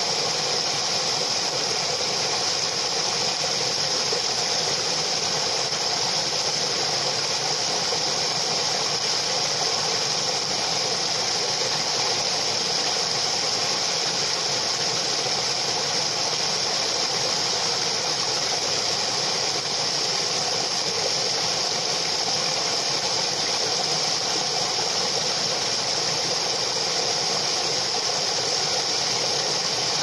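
Water rushing and splashing down a small cascade over rocks in a stream, a steady unbroken rush with a bright hiss.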